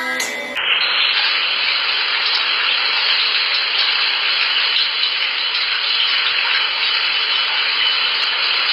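Shower spray running steadily onto a wet cat, a constant rushing hiss that starts about half a second in.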